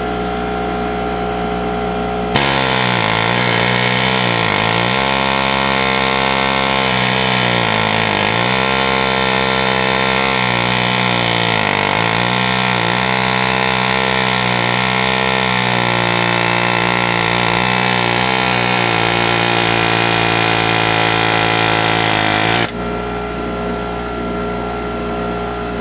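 Pneumatic air hammer with a chisel bit hammering on rust-seized parts of the front axle and hub. It runs as a loud, fast, buzzing hammer whose pitch sags and recovers every few seconds as it bites. It starts about two seconds in and stops shortly before the end.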